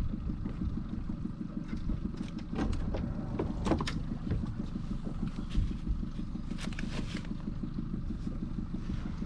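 Boat motor running at low speed, a steady low hum with a few faint clicks over it.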